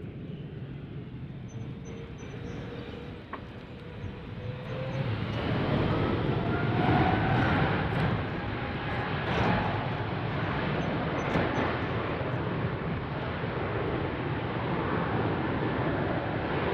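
Jet airliner passing: a broad rush of engine noise builds about four seconds in and stays loud, with whining tones sliding upward through it.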